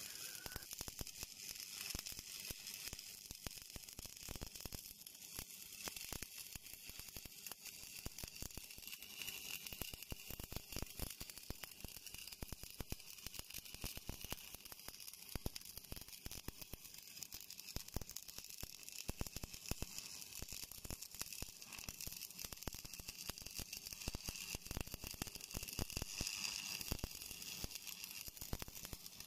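Stick (shielded metal arc) welding arc burning continuously with a dense, irregular crackle and sizzle as an electrode runs a bead along 3 mm steel, the old machine set to high amperage.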